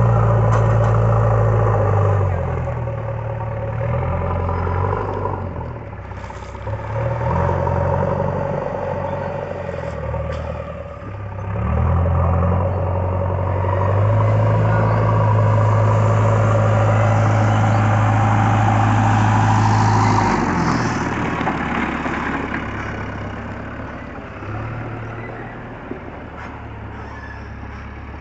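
JCB backhoe loader's diesel engine working, revving up loud for long stretches, about the first two seconds and again for several seconds in the middle, and dropping back to a lower, quieter speed in between and near the end.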